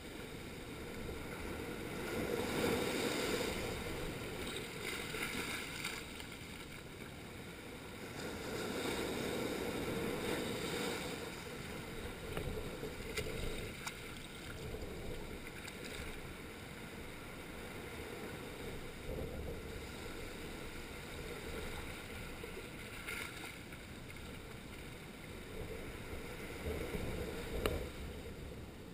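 Small waves washing in over a flat coral-rock shoreline: surges of foaming surf swell and recede every several seconds, stronger in the first half and calmer later. There is a brief sharp tap near the end.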